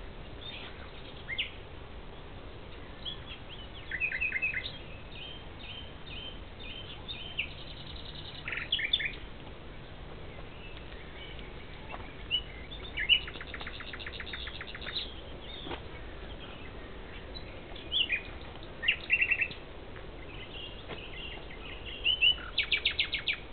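Common nightingale singing from a thicket: short, varied phrases a few seconds apart, made of sharp repeated notes and fast rattling trills. The loudest trills come near the end.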